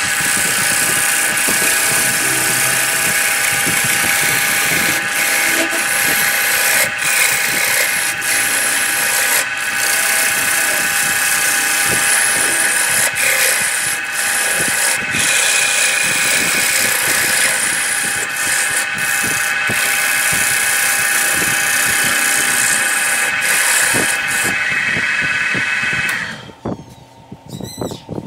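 Wood lathe spinning a large wooden disc blank while a gouge cuts it: a loud, steady cutting hiss over a high motor whine, with scattered short knocks from the tool on the blank. The cutting stops about 26 seconds in.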